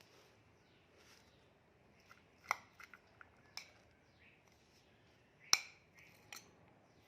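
A few sharp clicks and taps of a kitchen utensil against a dish, scattered and irregular, the loudest about two and a half seconds in and again about five and a half seconds in.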